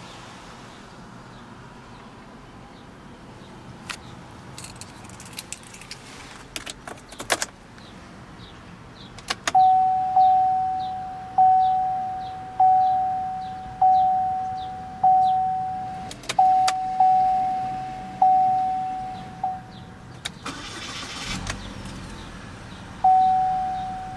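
Car warning chime in a 2013 Chevrolet Malibu ECO: one electronic ding repeated about once a second, briefly faster, stopping and then starting again. A few sharp clicks come before it, and a short rustling clatter falls in the gap.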